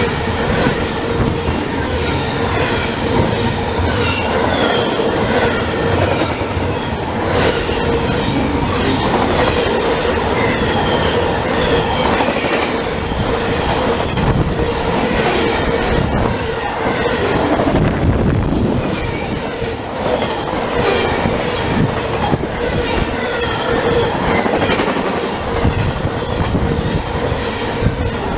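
A fast BNSF intermodal freight train's double-stack container cars and trailers pass close by at speed: loud, steady rumble and clatter of wheels on the rails, with short high squeals from the wheels and the rush of wind off the cars.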